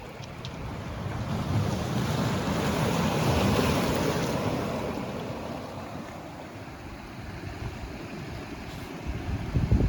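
Wind buffeting the microphone, a low rumbling rush that swells to its loudest a few seconds in and dies back, with a hard gust hitting the microphone near the end.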